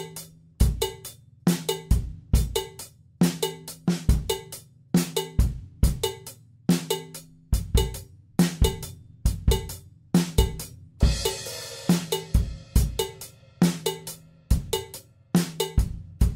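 Acoustic drum kit played in a slow, steady groove of bass drum, snare and hi-hat, at about 69 beats a minute. A cymbal crash comes about eleven seconds in and rings for a couple of seconds.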